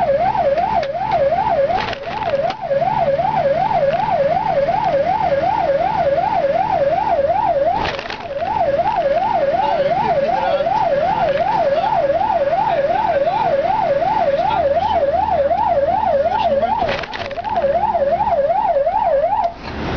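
Fire engine siren wailing in a fast yelp that sweeps up and down about two to three times a second, heard from inside the cab over the running engine. It breaks off briefly three times.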